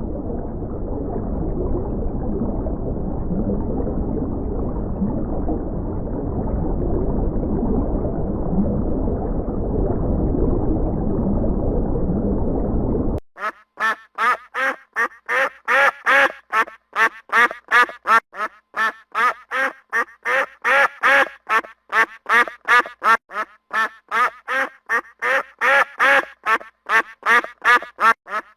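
Ducks quacking in a fast, even run of short calls, about three a second, beginning about halfway through. Before that comes a muffled, noisy sound with no clear calls.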